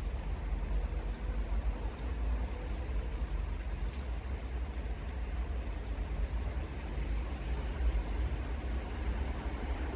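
Outdoor ambience in poor weather: wind buffeting the microphone as a low rumble, over a faint, steady hiss.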